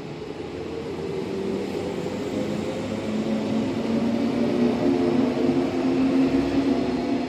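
JR 185 series electric train pulling out and gathering speed: the running rumble of its wheels and motors, with a low humming tone that grows louder as it picks up speed.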